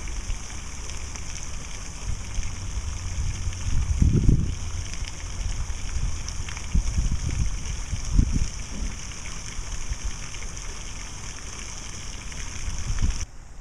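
Wind buffeting the microphone in uneven low rumbling gusts, over a steady high hiss that cuts off abruptly near the end.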